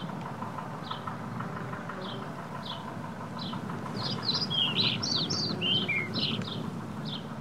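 Birds chirping: a short, high, falling call repeated about once a second, with a busier burst of varied notes a little past the middle, over a steady low rumble.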